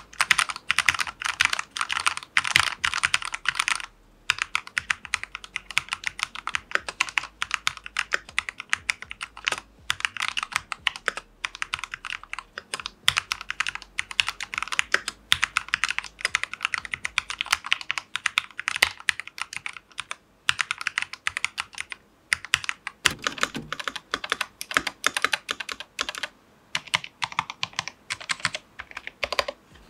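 Fast typing on a mechanical keyboard, dense key clacks in runs broken by short pauses. The tone of the keystrokes turns fuller and lower about 23 seconds in.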